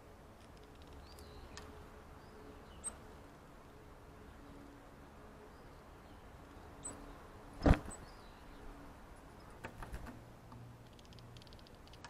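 Wild garden birds giving a few faint, short, high chirps, with one sharp knock about two thirds of the way through and a few lighter clicks soon after.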